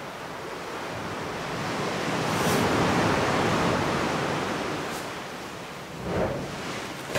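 Ocean surf washing into a sea cave: a wave's noise swells up to a peak a few seconds in and then ebbs away. Tent fabric rustles briefly near the end.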